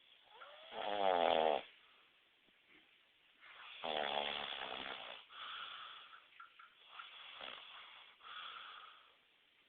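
A man snoring: two loud snores, the first about a second in and the second around four seconds in, each followed by quieter wheezy breaths.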